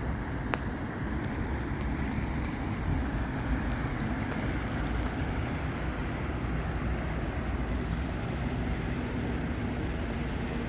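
Steady rushing noise of the flooded Green River, with wind buffeting the microphone.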